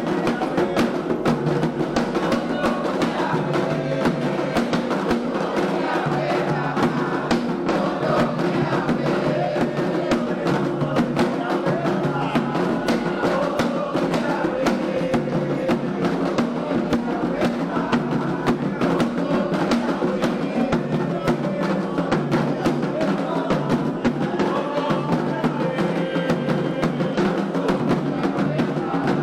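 Candomblé ritual music: atabaque drums play a steady, driving rhythm with struck percussion, and voices sing a chant over them.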